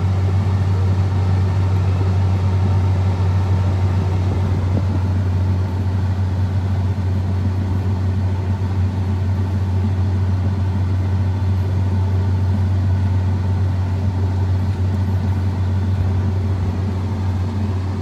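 John Deere X9 combine harvester running under load while harvesting wheat, heard from inside the cab: a steady, unchanging low drone of engine and threshing machinery.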